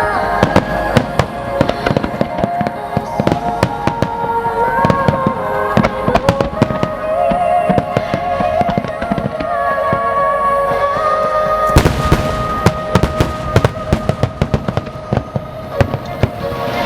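Aerial fireworks bursting in a rapid series of sharp bangs over music played on loudspeakers; from about twelve seconds in a dense crackle of many small bursts joins for several seconds.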